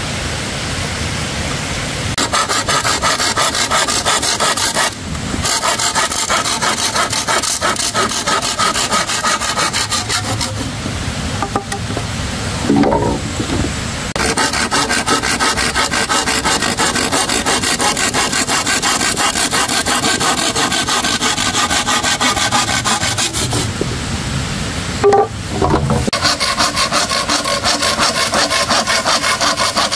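Hand saw cutting through a green bamboo stalk resting on a wooden board: rapid back-and-forth strokes with the teeth rasping through the bamboo, pausing briefly a few times.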